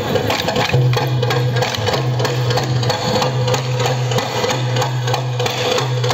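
Stick-dance percussion: a two-headed barrel drum beaten by hand in a quick rhythm, with the dancers' wooden sticks clacking against each other, a dense, steady run of knocks. A steady low hum keeps cutting in and out about every second beneath it.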